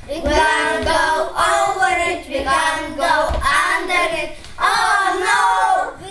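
A group of young children singing and chanting together in unison, in phrases of about a second each with short breaks between them.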